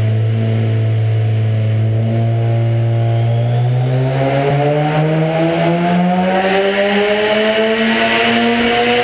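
The Mazda RX-7's turbocharged 13B two-rotor rotary engine, running on E85. It holds a steady speed for about three and a half seconds, then climbs slowly and evenly in revs while a rising hiss builds over the engine note.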